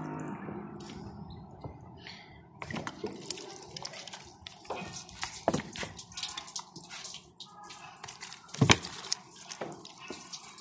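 Water from a shower-pattern spray nozzle splashing and pattering on the glass of a solar panel, rinsing off the dirt loosened by scrubbing, with irregular drips and splashes. A louder knock comes near the end.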